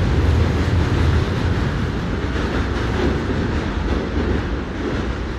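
Two coupled TGV Réseau high-speed electric trainsets pulling out of the station. A steady rumble of the train running over the rails slowly fades as it draws away.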